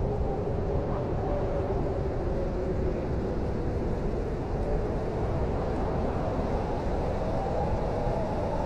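Blizzard wind blowing steadily, a deep rumble with a howl that slowly wavers in pitch.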